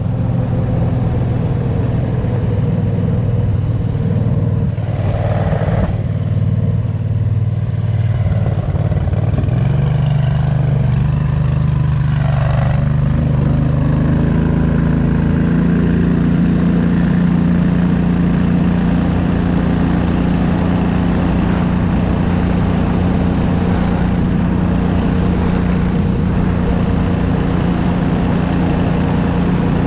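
Homemade off-road go-kart's 670cc V-twin engine running at low speed, then revving up about ten seconds in and again a few seconds later, settling into a steady higher pitch as the kart drives on.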